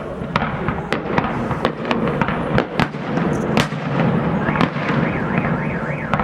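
Fireworks display: aerial shells bursting in sharp, irregular bangs, roughly two a second, over a continuous dense din.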